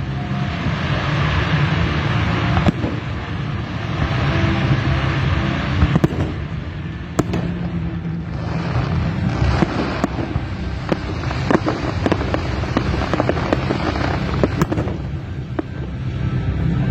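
Fireworks going off: many sharp bangs at uneven intervals, with stretches of dense crackling hiss, over a steady low rumble.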